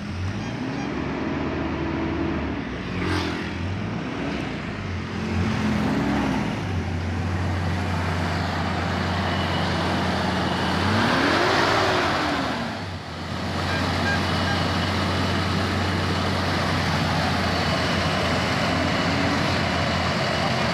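Toyota Innova engine started with the key and running, revved up and back down several times, the biggest rev about eleven seconds in, then idling steadily. This is a test run after cleaning the throttle body and MAF sensor to cure rough running and a throttle that would not respond.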